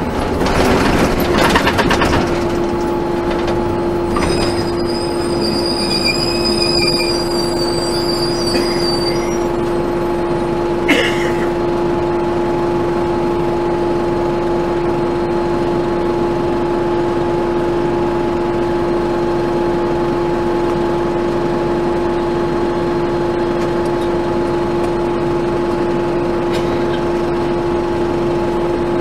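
On board a 1996 NovaBUS RTS transit bus with a Detroit Diesel Series 50 four-cylinder diesel and Allison transmission: a whine falls in pitch over the first two seconds, then settles into a steady whine with the engine idling. A thin high squeal wavers from about four to nine seconds in, and a single clunk comes about eleven seconds in.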